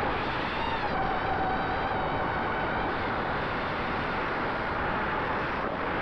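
Small drone's electric motors and propellers whining over a rush of wind noise. The pitch shifts with throttle and dips briefly near the end before climbing again.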